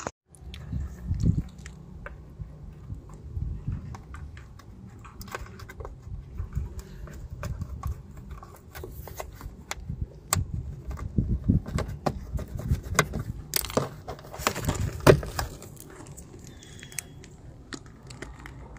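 Scattered clicks and small plastic knocks of a Torx screwdriver working loose the screws and a plastic push clip from a car's plastic wheel-arch liner, with the sharpest click about fifteen seconds in, over a low rumble.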